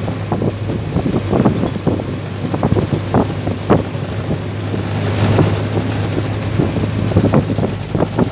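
Mercedes-Benz LO 814 minibus on the move, heard from the driver's seat: the diesel engine's steady low hum, with frequent irregular rattles and knocks from the bus body as it rides over the road.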